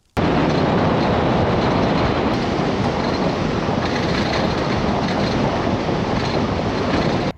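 Road noise from a truck driving on a dirt road, heard through a camera mounted on the outside of the vehicle: a loud, steady rumbling rattle that starts and cuts off abruptly.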